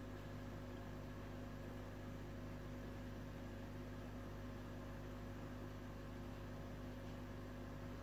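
Aquarium equipment humming steadily, a low electrical hum over a faint even hiss, typical of a running air pump and filter.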